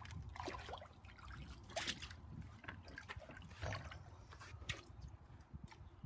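Shallow water in an inflatable paddling pool sloshing and dripping as a child wades and steps out, with a few small plinks of water drops.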